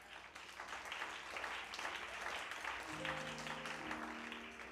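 A church congregation applauding in response to the preacher, the clapping fading toward the end. About three seconds in, a soft sustained instrumental chord comes in underneath.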